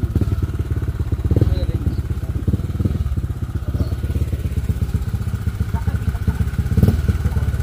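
Motor scooter's small engine idling, a steady, fast, even pulsing.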